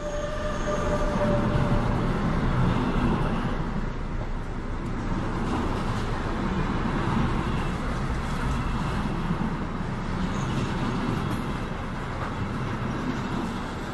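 Model trains running on the layout's track: a steady rumble and clackety-clack of small wheels and motors as a passenger train rolls past.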